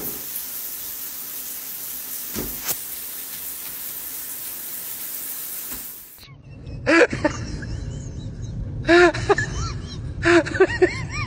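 A steady hiss with two faint clicks in it cuts off about six seconds in. Then a dog whines in short cries that rise and fall, in three bouts a second or two apart.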